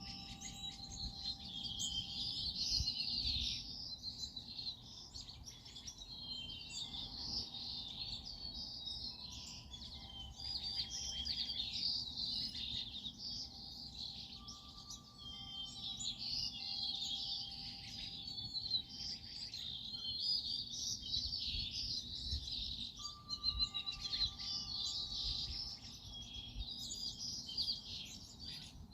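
Many small songbirds chirping and twittering without a break, a dense chorus of overlapping high calls.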